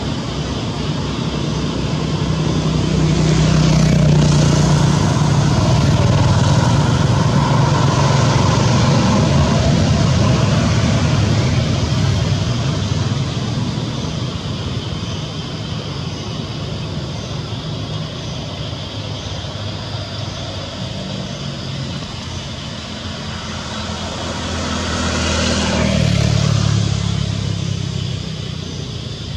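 Motor vehicles passing on a road: one approaches and goes by between about two and twelve seconds in, and a second swells and passes near the end, over a steady low hum of traffic.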